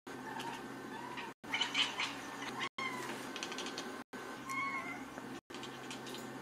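Domestic cat making a string of short meows, the loudest about two seconds in. The sound cuts out briefly about every second and a half.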